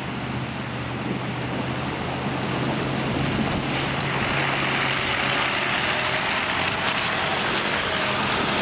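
A Toyota Hilux's engine running as it drives through a shallow river ford, with water rushing and splashing around the wheels. The sound grows louder from about four seconds in as the ute climbs out of the water onto the bank and passes close by.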